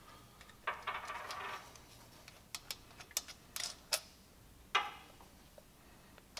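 Scattered light metallic clicks and clinks, with a couple of brief scrapes, as the steel pieces of a cam bearing installer tool are handled and pulled out of the engine's cam chest.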